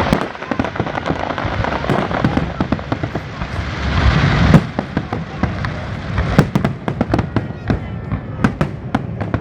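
Fireworks going off: dense crackling and popping that swells to a loud peak about four and a half seconds in and stops abruptly, followed by scattered separate sharp bangs.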